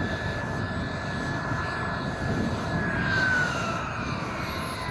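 Radio-controlled model jet flying past. Its whine holds steady, then falls in pitch about three seconds in as it goes by, over low wind rumble.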